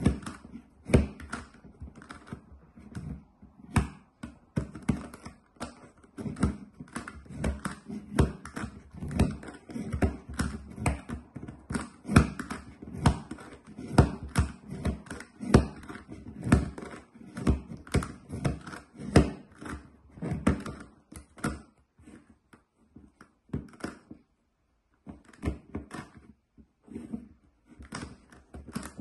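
GAN Megaminx, a twelve-sided plastic twisty puzzle, being turned with one hand while it rests on a wooden tabletop: a fast, irregular run of plastic clicks and clacks as the faces snap round. The turning thins out about two-thirds of the way through, with a short pause near the end.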